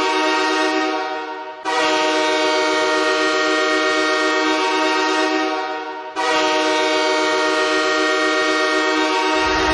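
Nathan K3LA five-chime locomotive air horn played as a hockey goal horn. A blast tails off about a second and a half in, then two long blasts of roughly four seconds each follow, each starting sharply and tailing off. Music comes in right at the end.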